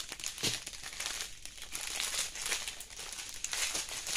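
Clear plastic packets of diamond-painting drills crinkling and crackling as they are handled and pulled apart by hand, an irregular run of small crackles.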